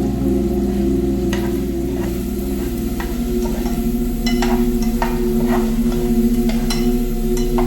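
Cooking sounds: a utensil stirring in a pan with scattered clicks and taps, over steady held low tones that shift pitch about two and a half seconds in.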